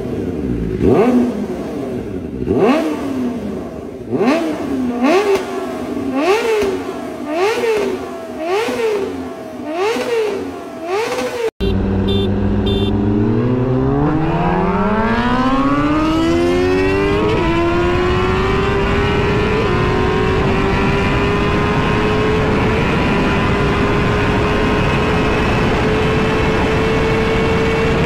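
Kawasaki ZX-10R's inline-four engine revved while standing, about nine quick throttle blips, each rising and falling in pitch. After a cut, the bike is ridden flat out: the engine note climbs steadily for several seconds, then holds high and steady at about 270 km/h in fifth gear.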